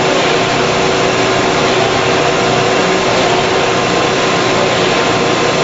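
Candy production-line machinery running on the factory floor: a loud, steady noise with a couple of faint steady hums through it.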